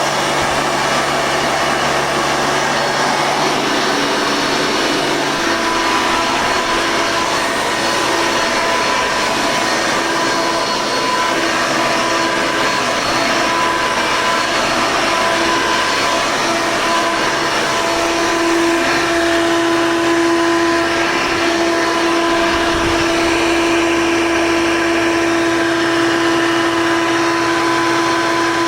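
Hoover Elite2 6.5-amp vacuum cleaner running steadily, a loud whirring motor and rush of air with a steady whine that grows stronger about 18 seconds in.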